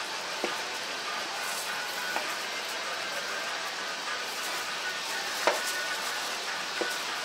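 Cleaver chopping cooked chicken on a plastic cutting board: a few sharp knocks, the loudest about five and a half seconds in, over a steady hiss of background noise.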